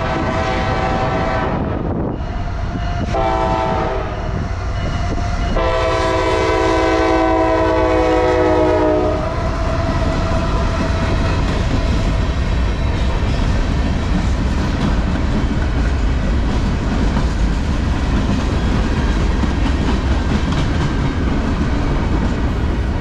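Diesel freight locomotive's air horn blowing three blasts, the first cut off about two seconds in, a shorter one after it, and a long one held about three and a half seconds. Then the steady rumble and wheel clatter of the freight cars rolling past.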